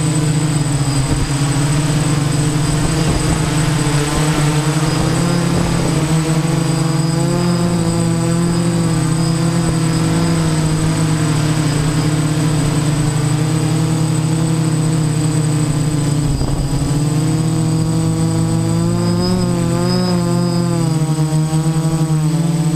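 DJI Naza-M Y6 multirotor's six brushless motors and 10-inch props buzzing steadily in flight, the pitch wavering up and down as the motors adjust, with a steady high whine alongside. The pilot suspects its Turnigy 3S 5Ah LiPo battery is drained.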